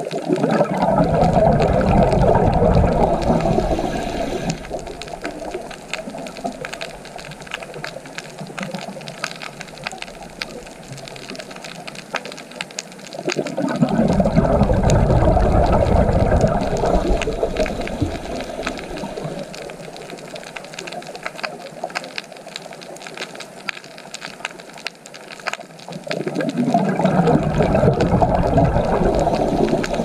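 Rushing water swells up and dies away three times, about thirteen seconds apart. A fainter, steady crackling patter runs between the swells.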